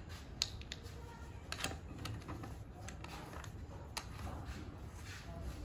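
Scattered clicks and small knocks of plastic and metal as a hose fitting is screwed onto a pressure washer and tightened by hand, over a low steady hum.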